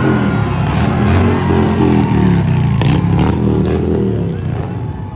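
Loud vehicle engines revving up and down, easing off near the end, with a few sharp clicks over the top.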